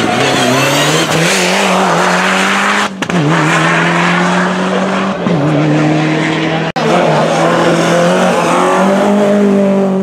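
Race cars' engines at full throttle, the pitch climbing and then dropping at gearshifts, in a few short passes joined by abrupt cuts.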